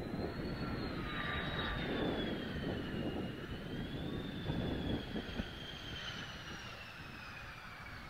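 Mitsubishi F-2A fighter's F110 turbofan whining on landing approach, its high whine wavering and slowly falling in pitch as the jet passes. Gusty wind buffets the microphone.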